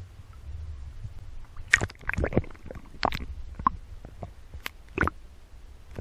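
Water heard through a GoPro's underwater housing as the swimmer goes from the surface to below it: a low muffled rumble, with splashy bursts and sharp clicks and knocks scattered between about two and five seconds in.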